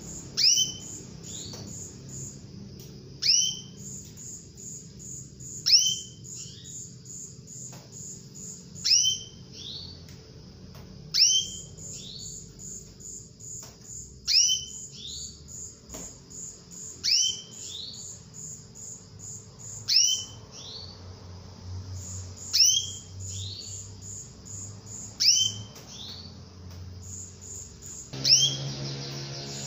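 Female canary calling for a male: a sharp, high call that slides steeply down in pitch, repeated about every two and a half to three seconds, eleven times. A faint, rapid, steady high-pitched pulsing runs behind it.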